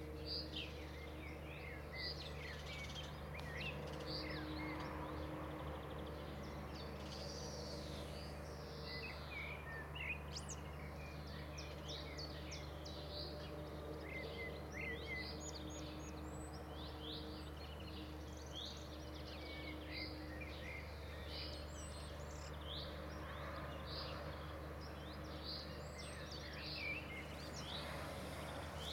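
Several songbirds chirping and singing in the background, a dense run of short, quick notes, over a steady low hum.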